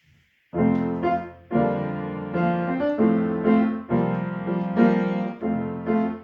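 Piano playing the introduction to a children's song, a run of chords that changes about once a second. It starts about half a second in.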